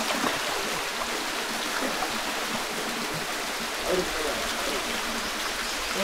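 Small waterfall spilling steadily into a shallow rock pool: an even rush of falling water, with faint voices about four seconds in.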